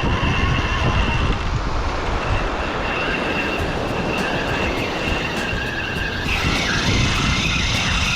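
Wind buffeting the microphone over the noise of the surf, a steady rumble, with a thin high whine coming in about three seconds in.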